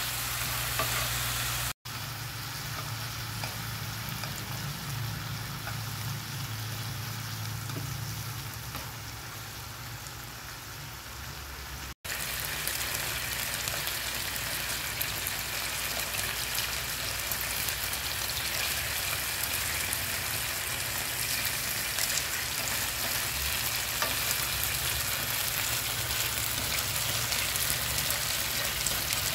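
Squid sizzling steadily in a thin garlic fish-sauce glaze in a frying pan, simmering down as the sauce reduces and thickens. The sizzle breaks off for an instant twice, about two seconds in and about twelve seconds in.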